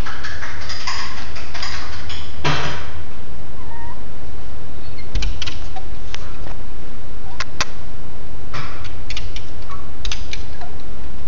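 Small dog scratching and pawing at a glass door: its claws scrape and tap on the glass in quick clusters, with a few short whines.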